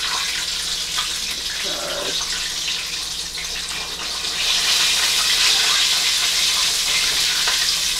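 Chicken frying in hot oil, a steady sizzle that grows louder about four seconds in.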